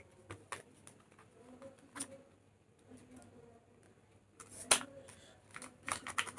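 Cosmetic product packaging being opened by hand: scattered small clicks and crinkles, a sharper click a little under five seconds in, and a quick flurry of clicks near the end.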